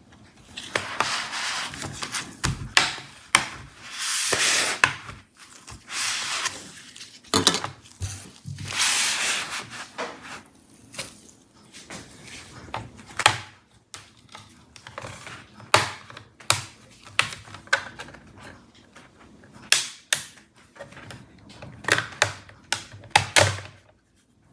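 Thin plastic pry tool scraping along the seam of an ASUS V16 laptop's plastic bottom cover, with the cover's clips popping loose in short sharp clicks, which come thick and fast in the second half.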